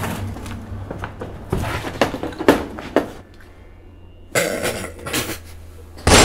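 Scattered clinks and knocks of objects being moved about in a small space, over a low steady hum, with a short rustling burst a little after the middle. A sudden loud bang comes at the very end.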